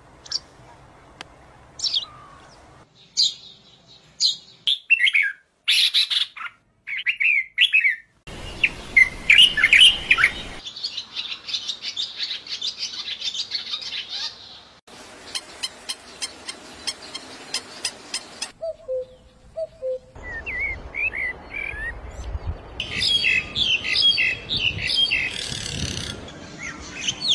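Wild birds chirping and calling: many short whistled chirps and quick falling notes, in several clips joined with abrupt cuts, over faint outdoor background noise.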